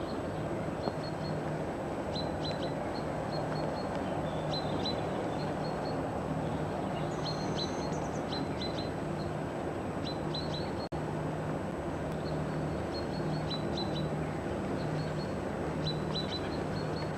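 Small birds chirping in short repeated notes over a steady outdoor background noise, with a brief dropout in the sound about eleven seconds in.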